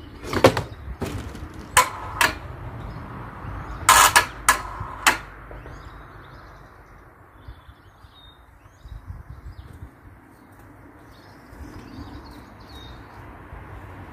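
A series of sharp knocks and clunks, about seven over the first five seconds and loudest around four seconds in, as a log is handled on a small electric hoist lift, followed by faint bird chirps.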